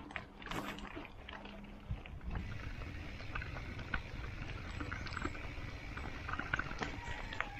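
Mountain bike being ridden uphill: a steady low rumble of road and wind noise, strengthening about two seconds in, with scattered light clicks from the bike.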